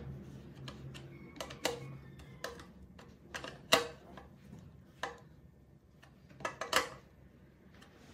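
Irregular metallic clicks and taps of a long socket driver working a nut through the plastic air-filter housing of a small four-stroke generator engine, loosening the housing. The sharpest clicks come just before four seconds in and again just before seven.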